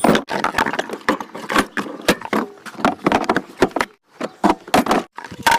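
Rapid, irregular clicks, knocks and rattles of a toy car and its packaging being handled during unboxing, with a short pause about four seconds in.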